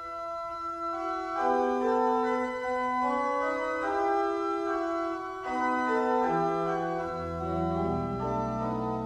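Organ music: slow, sustained chords that move from note to note, with deep bass notes coming in during the last third.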